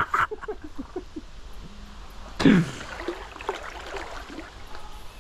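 A man's wordless vocal sounds: short sounds trailing off in the first second, then one louder exclamation falling in pitch about two and a half seconds in.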